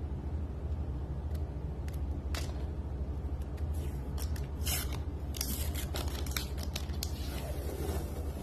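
Sticky protective film being peeled off a clock-kit part, with scattered crackles and sharp ticks that come thickest about halfway through, over a steady low hum.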